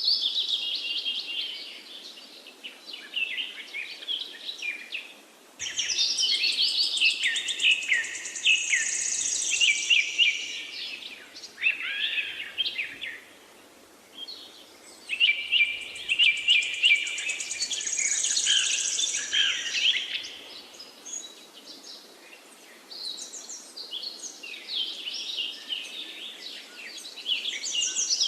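Birds chirping and twittering in busy, rapid phrases, in long bursts of several seconds with quieter gaps between.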